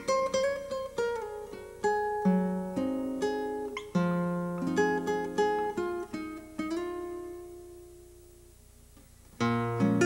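Background music of plucked string notes, a melody over lower notes. The phrase dies away about seven seconds in, and the playing starts again just before the end.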